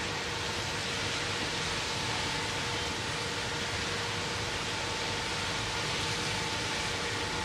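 Steady rushing noise with a constant hum at two steady pitches underneath, unchanging throughout.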